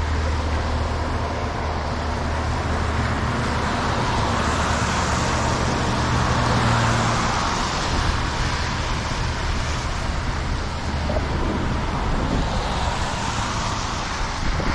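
Road traffic on a wet, snow-covered road: a steady rush of cars passing, with tyre noise on the slushy pavement, swelling as a car goes by about six or seven seconds in.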